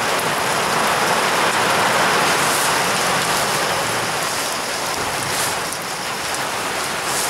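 Heavy summer downpour: a steady, dense hiss of rain falling on the platform, tracks and surroundings, swelling slightly about two seconds in.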